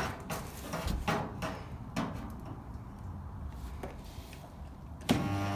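Light knocks and clicks of a spot welder's arms being placed on the steel rear arch panel. About five seconds in, a sudden loud steady buzz starts as the spot welder fires a weld.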